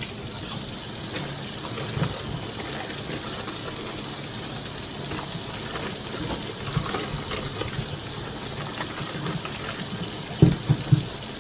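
Kitchen tap running steadily as red potatoes are rinsed under it, with a few knocks of the potatoes against the sink near the end.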